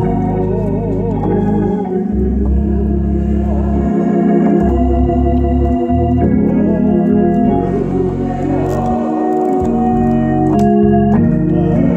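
Organ with a Hammond-style sound playing slow, sustained gospel chords over a steady bass, the chords changing every second or two.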